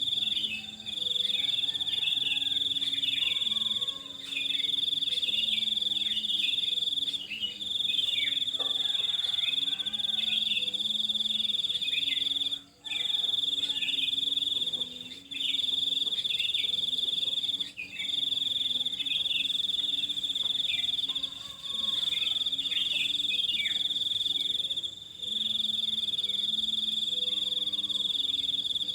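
A loud, steady, high-pitched insect trill that breaks off briefly every few seconds, with many quick, falling bird chirps underneath it.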